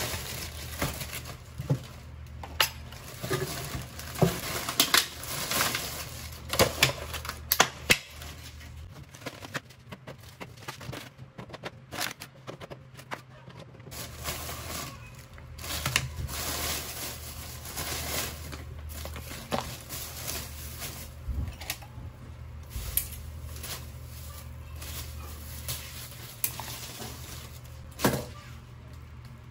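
Plastic grocery bag rustling and crinkling as wrapped groceries are lifted out and set down, with many short light knocks and clicks. A low steady hum runs underneath, dropping out for a few seconds midway.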